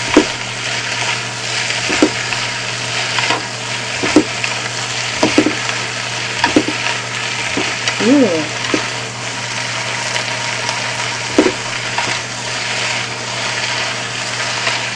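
Stir-fried udon with squid and bean sprouts sizzling in a hot frying pan as it is tossed with chopsticks and a fork, with a steady hiss and the utensils knocking against the pan about once a second.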